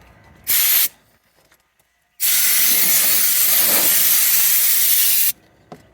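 Compressed-air blow gun at 100 psi hissing as it blows dust out of a car's interior: one short blast about half a second in, then a long steady blast of about three seconds.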